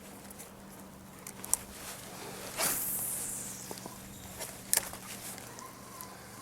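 Casting with a spinning rod and reel: a couple of sharp clicks and a brief zip-like hiss of line paying out off the spool, fading over about half a second.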